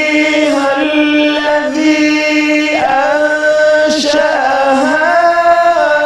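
A man's solo, unaccompanied Egyptian religious chanting, holding long notes with ornamented melismatic turns.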